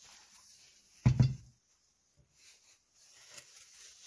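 Heavy cast hub with a bolted-on aluminium adapter plate turned over and set down on a workbench: one short, heavy knock about a second in. Faint handling scrapes and a small click follow.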